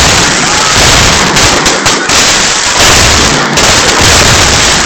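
A dense, unbroken barrage of firecrackers and fireworks going off, so loud that it stays close to the recording's limit throughout.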